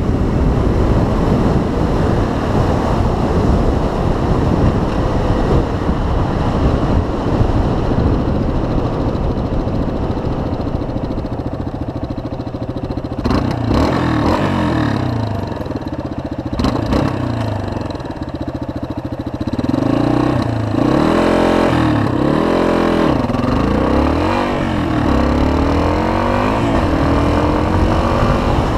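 Yamaha 250 dual-sport motorcycle's single-cylinder engine. It runs under wind rush while riding, then idles steadily for a few seconds at a stop about halfway through. It then pulls away, its pitch rising and dropping several times through the gear changes.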